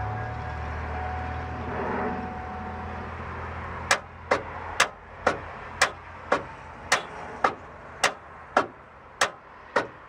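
A car's starter clicking instead of cranking: sharp, evenly spaced clicks, about two a second, begin about four seconds in after a low steady hum. This clicking is the starter not getting enough voltage to turn over, almost always a sign of a weak battery.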